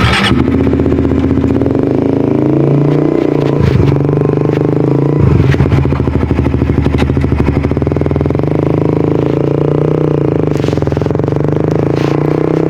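Suzuki GSX-R150's single-cylinder engine and exhaust running under way. The engine note changes sharply about four and five seconds in, then climbs slowly near the end.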